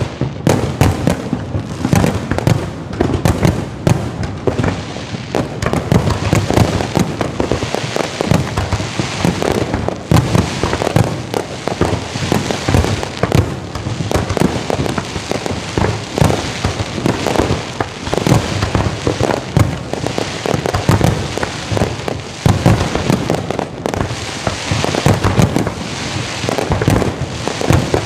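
Fireworks display: a dense, unbroken barrage of bangs and explosions going off in quick succession.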